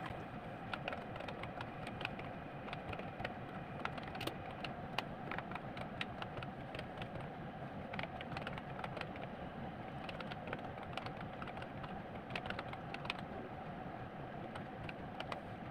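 Computer keyboard keys clicking in quick, irregular runs as text is typed, over a steady background hum.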